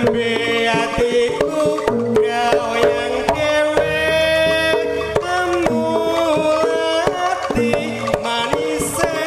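Live Javanese jaranan music: hand drumming with a pitched melody line that slides and bends over it.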